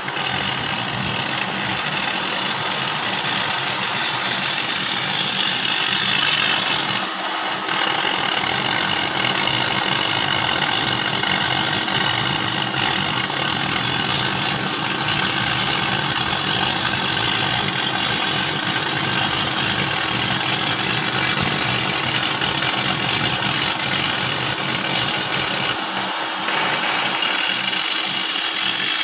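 Oxy-fuel cutting torch on a CNC cutting machine burning through 20 mm mild steel plate: a steady, loud hiss of the cutting oxygen jet, with a faint steady hum underneath.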